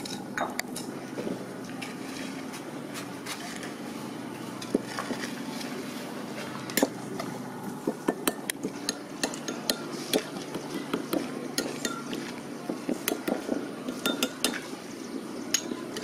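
Metal ladle stirring and mashing fermented fish paste (prahok) into hot broth in a bowl, with repeated clinks and scrapes against the bowl that come thicker and faster in the second half.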